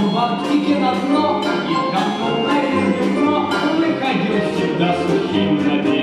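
An orchestra of Russian folk instruments, domras and balalaikas among them, playing an instrumental passage of quick plucked notes.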